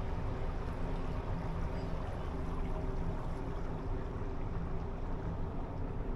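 Steady low rumble and faint hum of an expedition cruise ship's machinery, heard from its open deck, with no breaks or sudden sounds.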